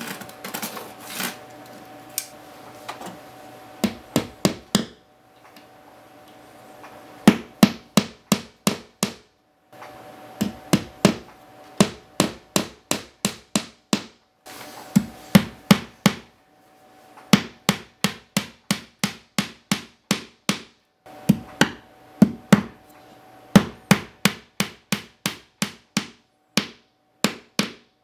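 Hammering: runs of quick strikes, several a second, each run of about four to eight blows broken by short pauses.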